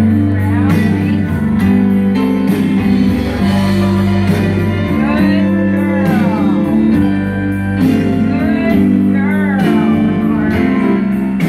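Background music: a song with a singing voice over sustained chords and a steady beat.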